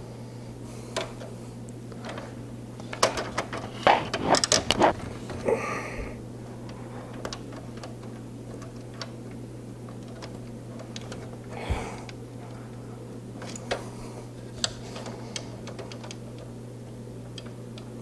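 Irregular clicks and taps of a screwdriver and small screws against a PC case as a 140 mm fan is fastened at the top of the chassis, with a quick run of sharp clicks a few seconds in, over a steady low hum.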